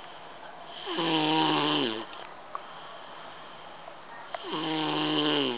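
A four-year-old child snoring loudly in his sleep: two long snores about three seconds apart. Each has a hoarse, pitched tone that drops in pitch as it ends.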